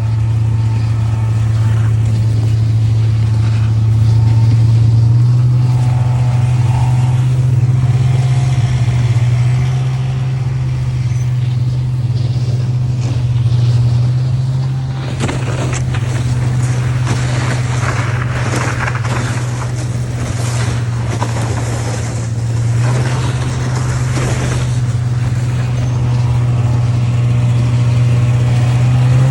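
A vehicle engine running steadily, with a low even hum that steps up slightly in pitch about five seconds in. Around the middle, a rushing hiss joins it for about ten seconds.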